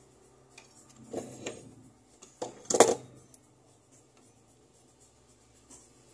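A few light clicks and knocks of small metal jeweller's tools handled on a workbench, with one louder clatter just under three seconds in.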